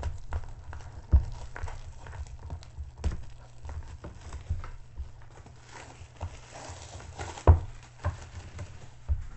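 Clear plastic shrink-wrap crinkling as it is pulled off a long cardboard kit box, with the box knocking on a wooden table as it is handled. There are many small clicks and several sharp knocks, the loudest about three-quarters of the way through.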